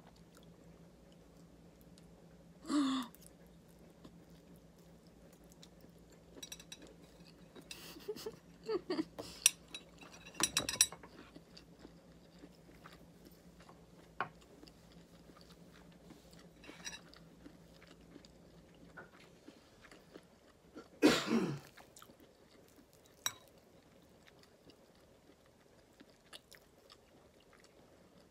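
Someone eating noodles with a fork: quiet chewing, with a cluster of fork clicks against the plate around the middle. There are two short throat or mouth noises, one near the start and a louder one about two-thirds through.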